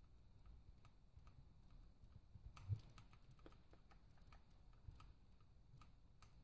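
Near silence with faint, scattered clicks and ticks of a hand hex driver turning a screw into a plastic RC car part, with one slightly louder click about two and a half seconds in.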